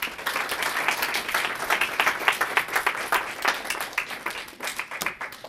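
Audience applauding, many hands clapping densely and then thinning out near the end.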